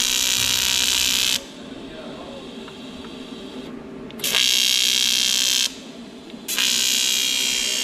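TIG welding arc buzzing on an aluminium engine side cover, in three runs: one stops about a second and a half in, a second of about a second and a half starts around four seconds in, and a third starts about six and a half seconds in.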